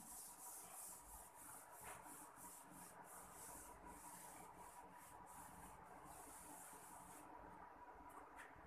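Chalkboard duster rubbing across a chalkboard, wiping off chalk writing in quick repeated strokes, stopping about seven seconds in.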